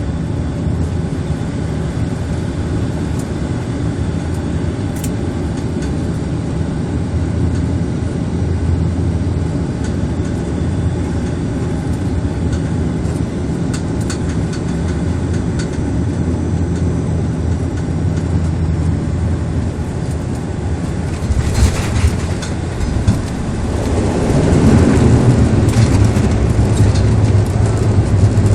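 Bombardier Dash 8 Q400 turboprop heard from inside the cabin: steady drone of the engines and propellers on final approach, then a few sharp jolts of touchdown about three quarters of the way in, after which the engine noise swells into a louder roar as the aircraft slows on the runway.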